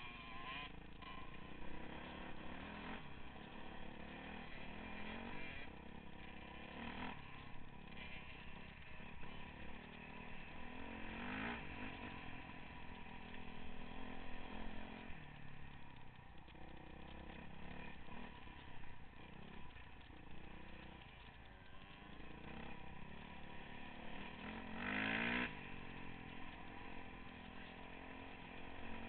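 Dirt bike engine heard from on the bike as it is ridden along a trail, its pitch rising and falling with the throttle and gear changes. The revs climb sharply about eleven seconds in and again near the end.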